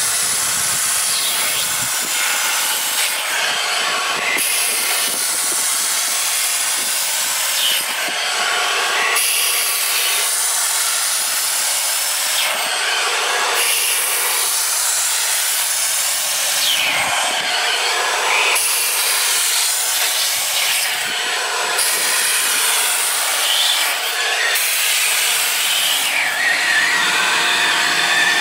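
Optima Steamer hand tool hissing steadily as its head is worked in strokes across a cloth car seat. The sound shifts every few seconds with each pass.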